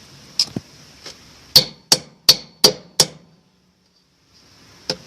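Sharp knocks on a washing machine part during reassembly. Two light clicks come first, then five strong knocks in quick succession, about three a second, and two more knocks near the end.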